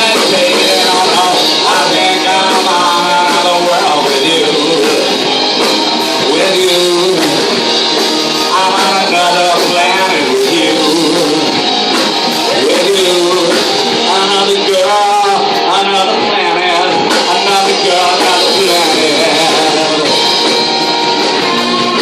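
Live rock band playing a cover, with electric guitar and a singer, loud and continuous.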